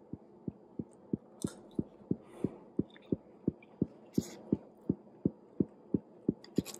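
Soft low thumps repeating steadily about three times a second, with a few brief scrapes and clicks of a plastic spoon in a foam takeout container.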